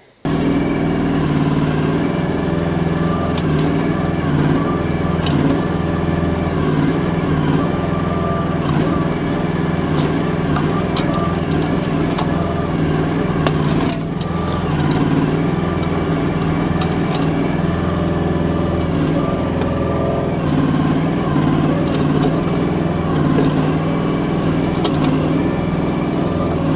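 Small engine of a Chinese mini excavator running steadily, with scattered short knocks and a brief break about halfway through.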